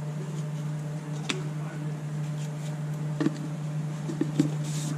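A steady low hum with a few light clicks and taps scattered through, as of a utensil or container handled while bread ingredients are measured into a bowl.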